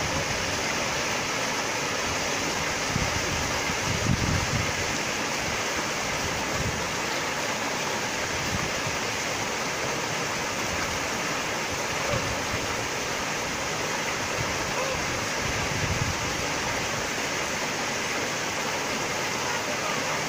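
Small waterfall splashing down a granite rock cleft: a steady rush of falling water, with a few brief low rumbles.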